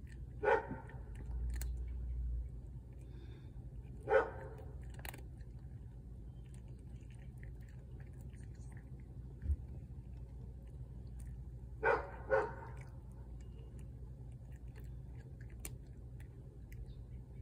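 A cat crunching dry kibble from a bowl. A dog barks four times over it, the last two close together.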